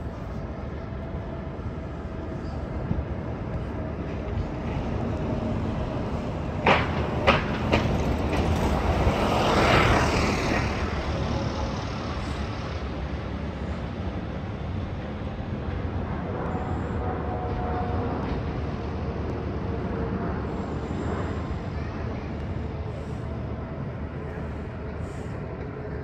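A vehicle passing over steady urban background noise. Its sound swells to a peak about ten seconds in, then fades. A few sharp clacks come just before the peak.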